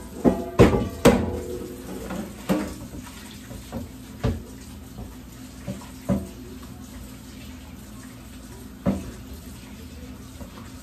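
Kitchen tap running into a stainless steel sink while a pot is scrubbed with dish soap, with sharp knocks of the pot against the sink now and then, the loudest in the first second.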